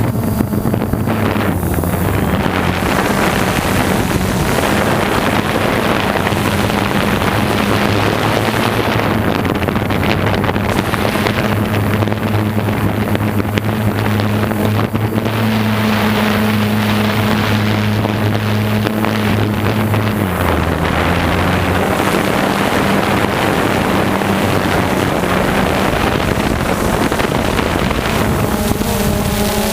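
A small engine running at a steady pitch, its tone dropping slightly about twenty seconds in, under heavy wind noise on the microphone.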